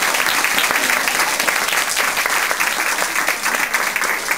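Applause from a roomful of parents and children, many hands clapping steadily together.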